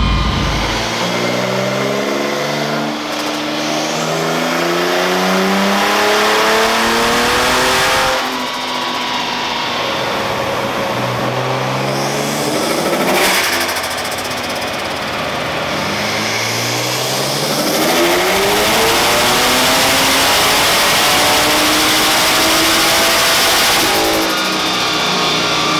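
Turbocharged BMW M50 2.8-litre stroker straight-six in an E36, run at full throttle on a chassis dyno. The revs climb, drop sharply about 8 and 13 seconds in, then climb in one long pull before falling away near the end.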